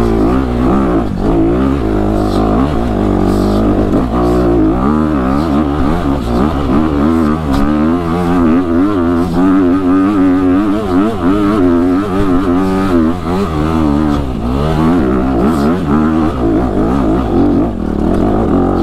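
Dirt bike engine revving hard on a steep, rocky hill climb. The pitch rises and falls unevenly as the throttle works against the load.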